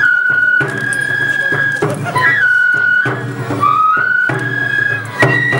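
Bon odori dance music. A high bamboo flute melody plays held notes with slides between them, over regular drum strikes about once a second.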